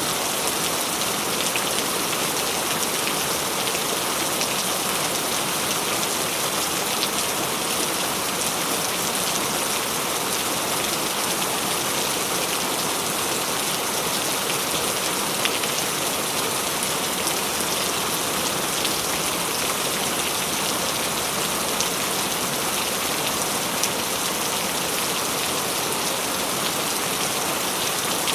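Steady rain falling and pattering on a surface, an even hiss with scattered small drop ticks.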